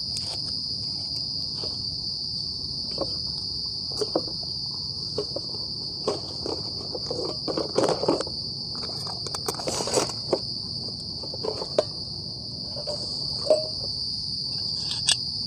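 Crickets chirring in a continuous high drone, with irregular rustles and knocks of gear being handled in a bag, busiest around the middle.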